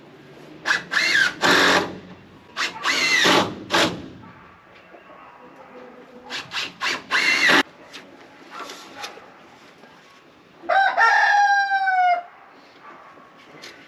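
A cordless drill driving screws in three runs of short and longer trigger pulls, then a rooster crows once near the end.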